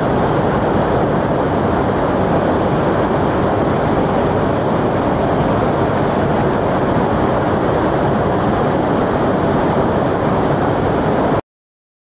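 Steady rush of a fast glacial river pouring over rapids, cutting off abruptly near the end.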